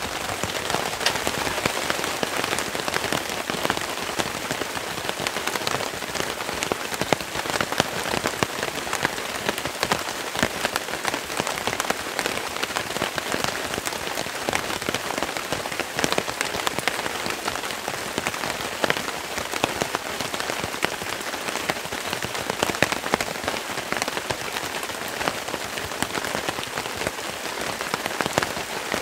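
Steady rain falling, a constant hiss dotted with many sharp individual drop hits.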